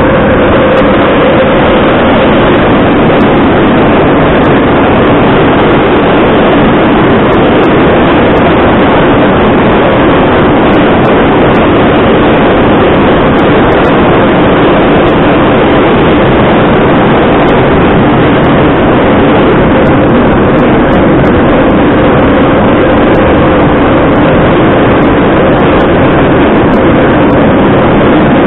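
Moscow Metro train running at speed through a tunnel, heard from inside the passenger car: loud, steady wheel and running-gear noise with a faint hum under it.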